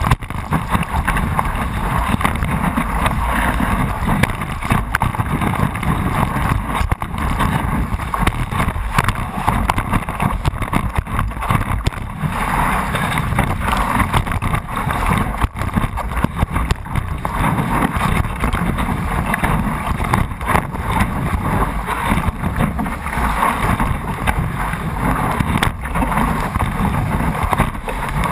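Water rushing and splashing at the nose of a stand-up paddleboard riding a wave, heard close up, with many small splashes and knocks. Wind buffets the microphone.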